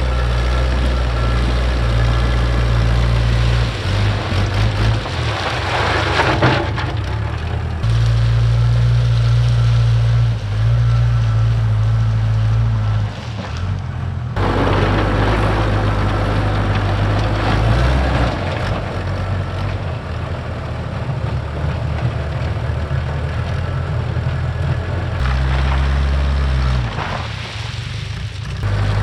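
Case 580K backhoe's diesel engine running under load while spreading #2 limestone gravel, its pitch stepping up and down as the operator works the throttle and hydraulics. Louder spells of gravel rushing and crunching under the bucket come about six seconds in and again midway.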